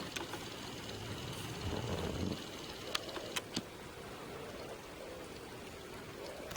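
Steady outdoor background noise, with three short, sharp clicks a little past the middle.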